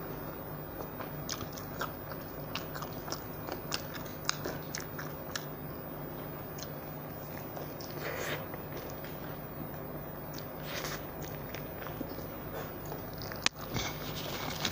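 A person biting into and chewing a burger with a soft bun, with many small wet mouth clicks and smacks. A faint steady hum runs underneath, and there is a sharper click near the end.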